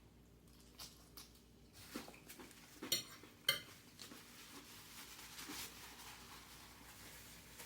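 Quiet clatter of tableware being handled during a meal, with two sharper clinks about three seconds in.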